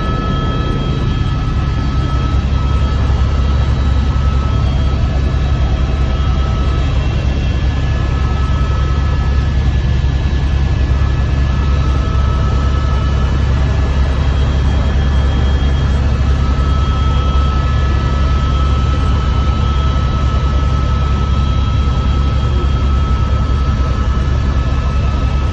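Helicopter running steadily: a constant low rotor and engine drone, with a faint high whine that comes and goes above it.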